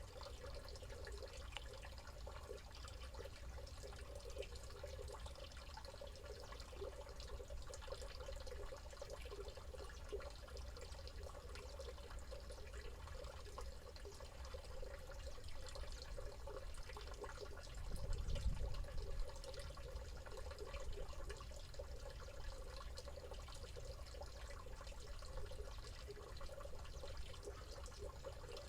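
Stream water running and trickling steadily. About two-thirds of the way through there is a brief low rumble.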